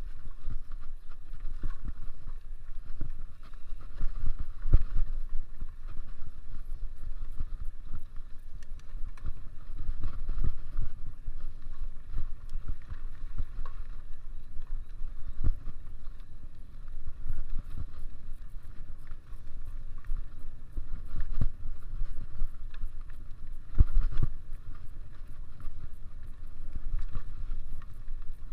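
Wind rumble on the camera microphone while riding a mountain bike on a dirt trail, with tyre noise and frequent knocks and rattles from bumps.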